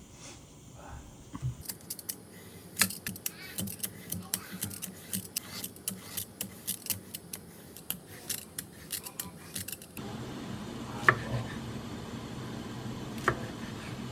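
Kitchen food-prep sounds: a run of quick, irregular clicks and clinks of utensils for about eight seconds. After an abrupt change in the background about ten seconds in, a few single knocks follow.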